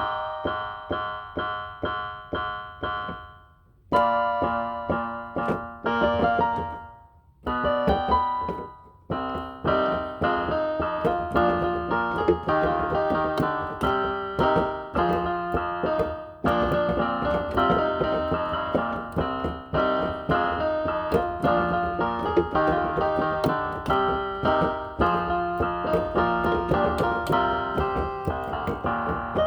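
Inexpensive electronic keyboard played with a piano voice. Evenly repeated notes at first, a break of about half a second near four seconds and another near seven, then steady playing of melody over chords.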